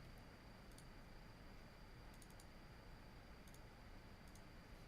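Faint, scattered clicks of a computer mouse and keyboard, a few single and double clicks, over quiet room tone with a thin, steady high-pitched whine.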